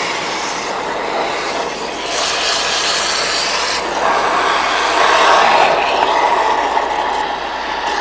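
High-pressure water jet spraying down the condenser duct of an LG washer dryer, a steady rushing spray that changes tone about two seconds in and again about four seconds in. It is flushing caught lint out of the condenser, the usual cause of the machine not drying properly.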